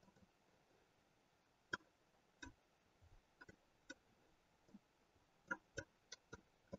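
Faint computer mouse button clicks, about ten short sharp clicks spaced irregularly, several coming close together in the second half.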